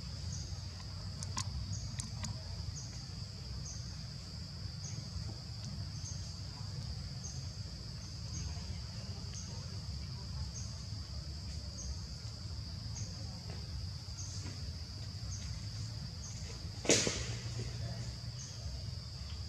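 Steady high insect drone with a short chirp repeating every half second or so, over a low rumble of background noise. A single sharp click near the end.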